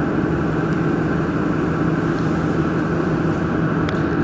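Steady machinery hum and whirr, even and unbroken, with a couple of faint clicks near the end.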